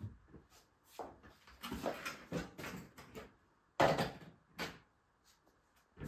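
Rummaging in a wardrobe as a hard-shell suitcase is pulled out and set on the floor: a string of knocks and rustles, with one sharp, loud knock just under four seconds in and a smaller one half a second later.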